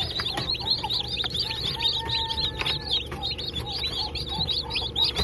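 A brood of newly hatched Sasso chicks peeping continuously: many short, high, falling peeps overlapping several times a second, over a steady low hum.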